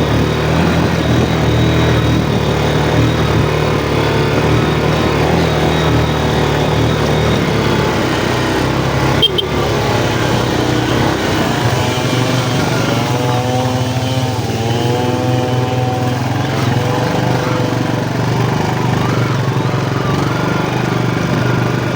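Yamaha Jupiter MX motorcycle engine running under way on a rough track. Its pitch rises and falls several times in the middle, and there is a single sharp click about nine seconds in.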